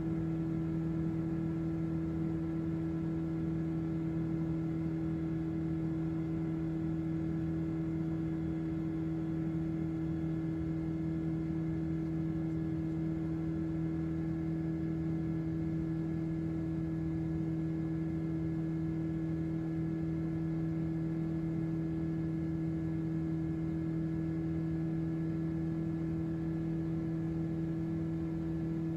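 Light aircraft's engine and propeller droning steadily in level flight, heard inside the cabin: an unchanging low hum with a strong higher overtone.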